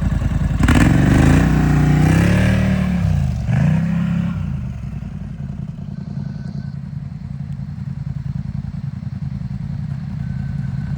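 Polaris Scrambler ATV engine revving up and down a couple of times in the first few seconds, then running steadily at a lower, even speed.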